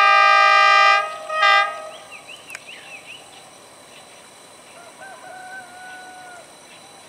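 Diesel locomotive air horn sounding two blasts as the train approaches: a long one of about a second, then a short one. Faint bird chirps and a brief call follow.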